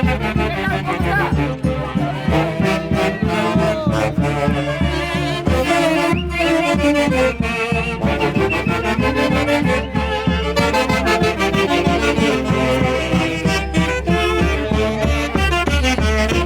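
Live Peruvian folk orchestra playing a fast traditional tune, with melody instruments over a steady beat.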